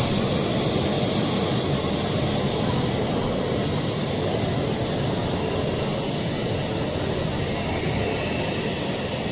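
E5 series Shinkansen train pulling into the station, its cars rushing and rumbling past as it slows, the noise slowly easing off. A faint high squeal comes in near the end as it brakes toward a stop.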